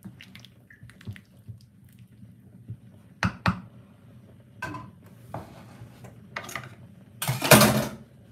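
Wooden spoon stirring soup in a metal pot, then two sharp knocks about three seconds in, as of the spoon tapped on the pot's rim. Softer clatters of kitchenware follow, and a longer, louder clatter near the end.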